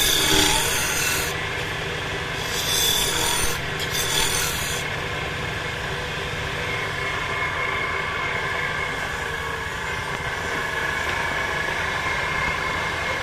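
A long hand-held turning tool scraping the inside of a mahogany blank spinning on a wood lathe, in two coarse spells during the first five seconds. After that the lathe runs on with a steady hum.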